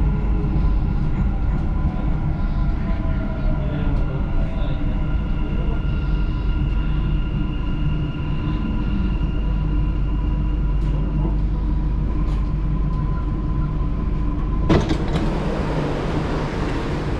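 Dubai Metro train running into a station and slowing to a stop: a steady low rumble, with a thin motor whine that falls in pitch as it brakes. Near the end, a click and a sudden rush of hiss come as it stands at the platform.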